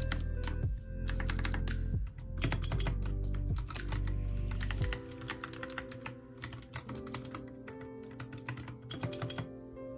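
Typing on a Royal Kludge RK61 mechanical keyboard: rapid, irregular key clacks throughout, over background music whose heavy bass drops out about halfway through.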